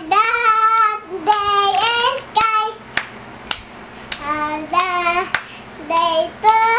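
Young girl singing a song in short held phrases, clapping her hands a few times between them.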